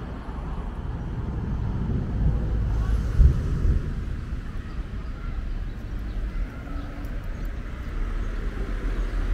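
Street ambience: a low, uneven rumble of road traffic mixed with wind buffeting the microphone, with a brief louder bump about three seconds in.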